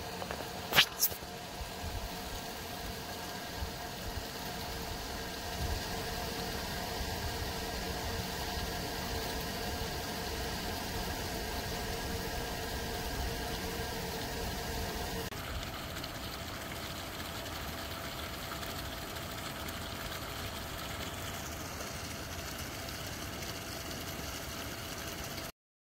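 Discharge water from a micro hydro turbine pouring out of the pipe outlet into a stream: a steady rush under a steady hum, with one sharp knock about a second in. The sound changes about halfway through.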